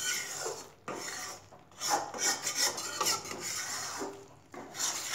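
Flat metal spatula scraping and stirring wheat flour roasting in ghee around a metal kadai, in several rasping strokes with short pauses between them.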